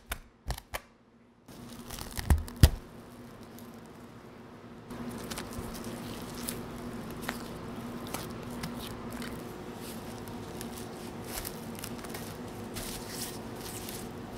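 A knife tapping quickly against a glass bowl as it stirs rice flour dough, then two thumps, then gloved hands squishing and kneading sticky glutinous rice dough in the glass bowl, with plastic wrap crinkling. A faint steady hum runs underneath.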